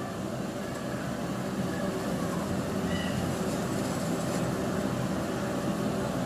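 Steady low rumbling background noise that holds at an even level throughout.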